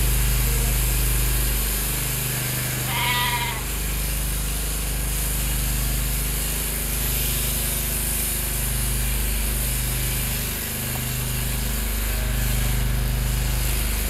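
A sheep bleats once, briefly, about three seconds in, over the steady hum of a powered sheep-shearing handpiece and the portable petrol generator that runs it.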